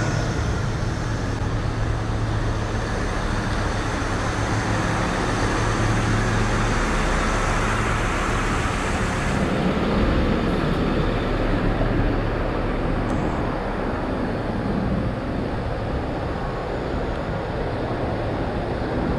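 Steady road traffic on a city street: cars and buses running past with tyre and engine noise. A low hum and a high hiss fade out a little past halfway.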